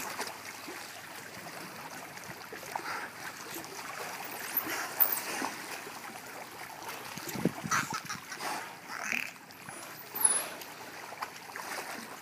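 Water splashing and sloshing irregularly as several bottlenose dolphins jostle at the edge of the pool.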